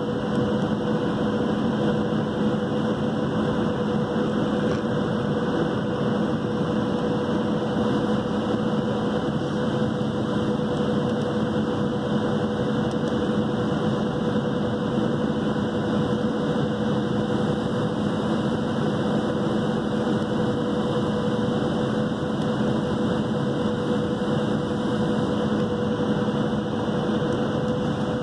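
Cabin noise of a Boeing 737-700 descending on approach, heard from a window seat over the wing: the CFM56-7B engines and the airflow make a steady, even noise with a constant hum and a steady tone through it.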